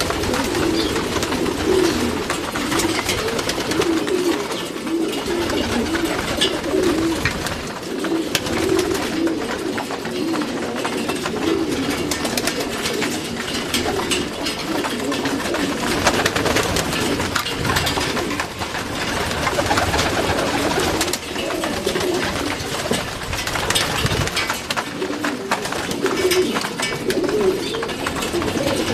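Many pigeons cooing over one another in a continuous, overlapping murmur, with many small clicks and knocks scattered through it.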